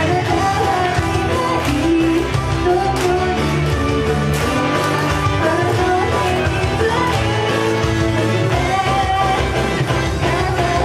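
Upbeat pop-rock song with singing over a band backing of guitar, bass and drums.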